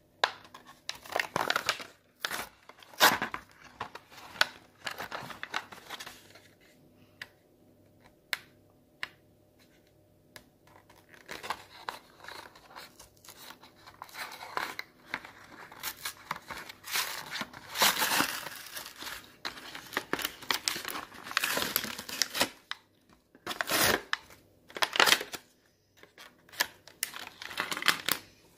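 A Pez dispenser's blister pack being pried apart by hand: bursts of crinkling and tearing of the clear plastic shell and card backing, with sharp clicks and knocks. It goes quieter for a few seconds about a third of the way in.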